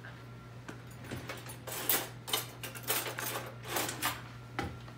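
Kitchen utensils and dishes clinking and scraping against each other, a string of short knocks and clicks starting about two seconds in.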